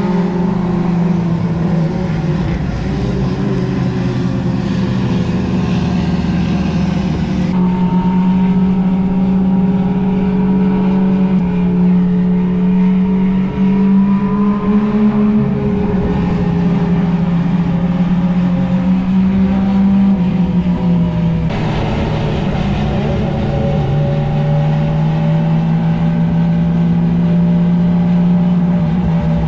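Lamborghini SC63 race car's twin-turbo V8 running at steady revs, a strong engine note that drifts gently up and down in pitch, with abrupt changes in the sound about 7 and 21 seconds in.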